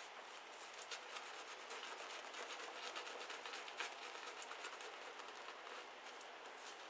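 Boar-bristle shaving brush scrubbing shaving-soap lather over beard stubble: a faint, continuous crackly swishing made of many small ticks from the brush strokes.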